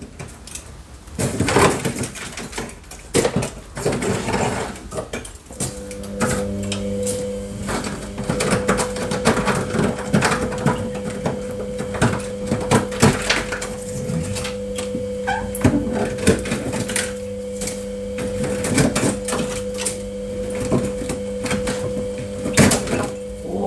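Ice being chipped and scraped off a freezer during defrosting: a busy run of knocks, clicks and scraping. A steady hum starts about five seconds in and stops near the end.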